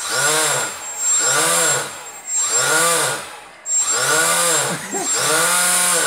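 Homemade electric ducted fan, built from a 12 V cooling fan's blades, revved up and back down about five times on the radio throttle: a motor whine that rises and falls in pitch with each burst. It runs on a weak battery, which the owner blames for its feeble thrust.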